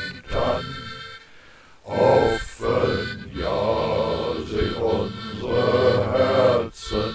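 A voice singing a German Christmas song over held instrumental accompaniment, with a short break between phrases about a second in.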